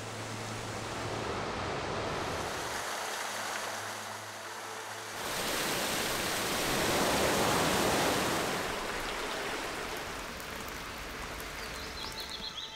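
Waterfalls rushing: a steady noise of falling water that grows louder about five seconds in. A few short bird chirps come near the end.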